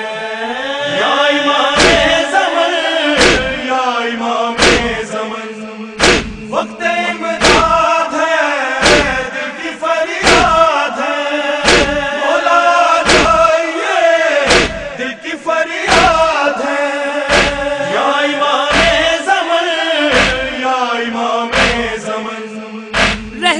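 Chorus of male mourners chanting a noha refrain in unison, with the whole group beating their chests (matam) together in a steady slapping beat of about one stroke every second and a half.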